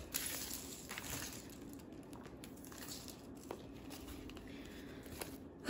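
Faint crinkling and rustling of L.O.L. Surprise Hair Goals toy packaging as it is handled and unwrapped, with a few light clicks.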